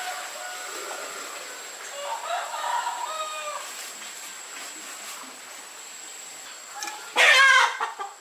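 Chickens calling, with several short calls early on and one short, much louder call about seven seconds in.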